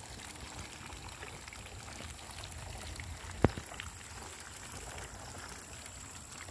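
Flock of Muscovy ducks dabbling and slurping wet mash from feed trays, a steady wet sloshing noise, with one sharp click about three and a half seconds in.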